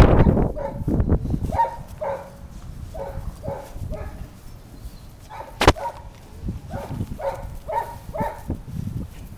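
Puppy yapping in a run of short, high yips, about two a second. A loud rustling burst at the start and one sharp click about halfway through.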